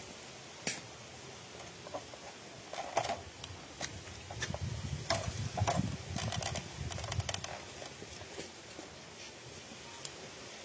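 Handling noise from a phone recording: a few sharp clicks and knocks, with a low rustling rumble from about three to eight seconds in as the phone brushes close against clothing.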